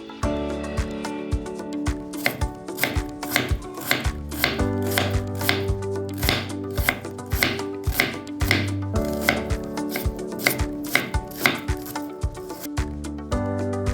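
Knife chopping on a cutting board in quick, uneven strokes, a few per second, over steady background music.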